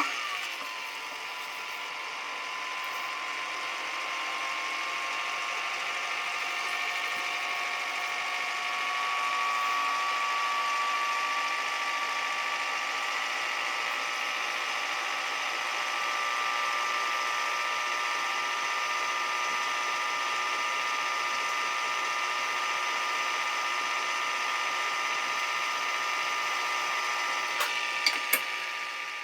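A small electric motor running with a steady whine. It settles slightly lower in pitch in its first second, and two or three sharp clicks come near the end.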